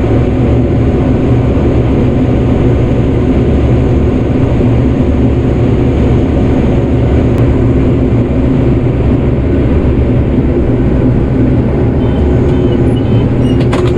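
Rotary combine harvester running steadily under load while harvesting corn, a loud, even machine drone with no change in speed.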